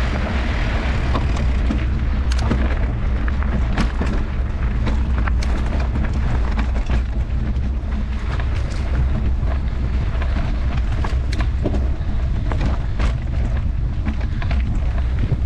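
Mountain bike ride on a dirt singletrack: a steady low rumble of wind buffeting the microphone and tyres on the dirt, with frequent sharp clicks and knocks from the bike rattling over the trail.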